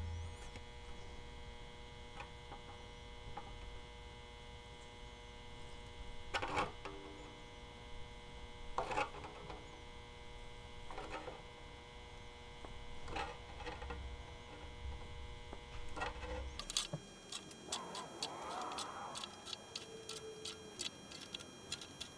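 Hand saw set clicking as its plunger is squeezed onto the teeth of a rip saw, bending them out one by one, about one click every two seconds over a steady electrical hum. About three-quarters through, the hum stops and the clicks come quicker.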